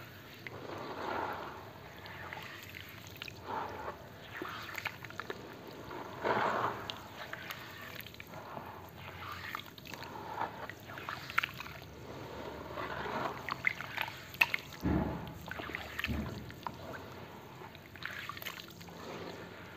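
Hands squeezing and sloshing a wet slurry of charcoal sand and water in a plastic tub: irregular squelching, sloshing and dripping with small sharp pops, and two heavier, deeper splats about three-quarters of the way through.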